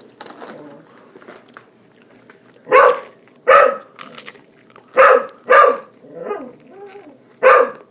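A dog barking in double barks, three pairs about two seconds apart, with softer whimpering sounds between the last two pairs.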